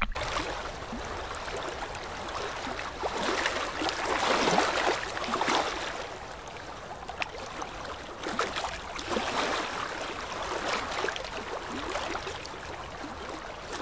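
Small waves sloshing and splashing around a waterproof camera held at the waterline as it dips in and out of the water. The rushing swells and eases, loudest about four seconds in.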